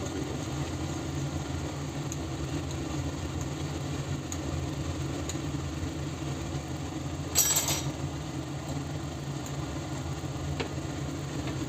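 Steady low hum of an induction hob running under a stainless steel wok of chicken curry, with one brief metallic clink of a spoon on the wok about seven seconds in.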